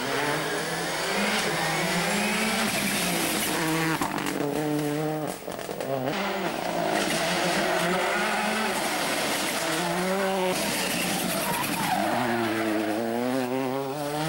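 Turbocharged four-cylinder World Rally Car engine at full attack on a rally stage. The revs climb and drop back repeatedly through several gear changes, with a short dip in the sound about five seconds in and a final run up through the gears near the end.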